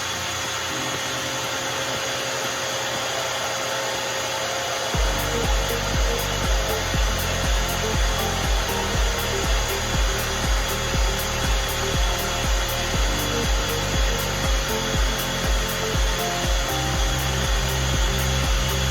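A motor-driven tool running steadily with a constant whine. Background music with a steady beat comes in about five seconds in.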